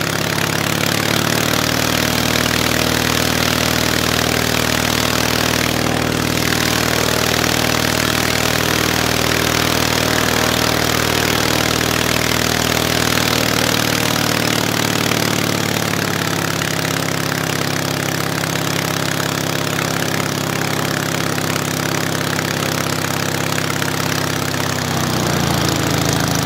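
Hummel Engines 45 hp half-VW aircraft engine running steadily with its propeller turning. The pitch eases down a little about halfway through and rises briefly near the end.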